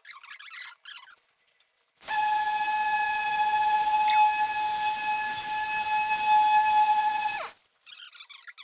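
Electric machine polisher running at a steady high-pitched whine with hiss for about five seconds, then switched off, its pitch dropping quickly as it winds down. Brief scratchy rubbing sounds come before it.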